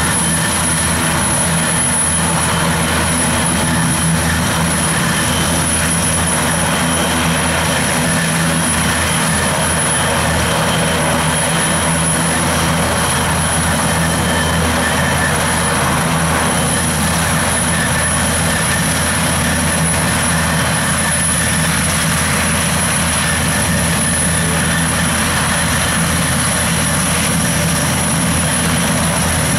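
NH90 military helicopter's twin turboshaft engines and rotors running steadily on the ground, a steady high whine over a low hum.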